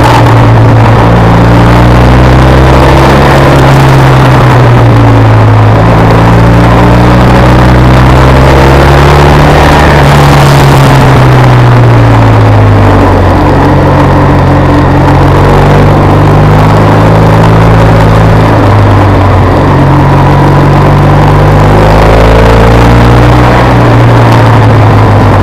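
BMW R1200 RS's liquid-cooled boxer twin running in third gear, heard from on board the motorcycle, its revs rising and falling several times as the rider opens and closes the throttle through the bends.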